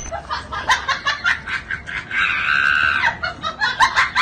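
People laughing in short bursts, with a high-pitched, shrieking laugh held for about a second roughly two seconds in.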